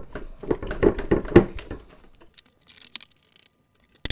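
Wooden chair parts knocking and rubbing as a stuck, loosened joint of an old chair is worked by hand, for about two seconds, then only a few faint clicks. A sudden rapid clatter starts right at the end.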